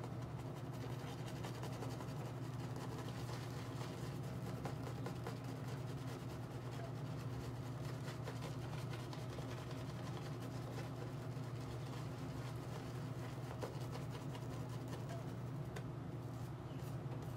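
Shaving brush face-lathering, its bristles swishing and squishing through the soap lather as it is built up on the face, over a constant low hum.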